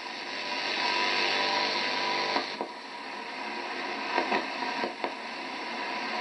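A steady hiss of noise that swells, dips about halfway through and swells again, with a few faint knocks.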